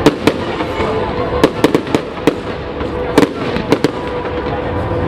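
Aerial fireworks bursting: a run of sharp bangs and cracks at uneven intervals, some coming in quick clusters of three or four.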